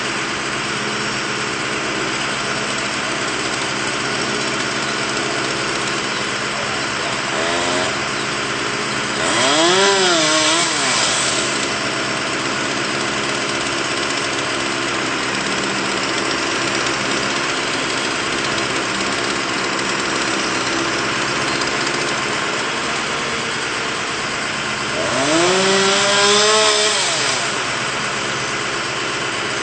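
Bucket truck engine idling steadily while a chainsaw is revved up and back down twice, about ten seconds in and again near the end, with a brief faint rev just before the first.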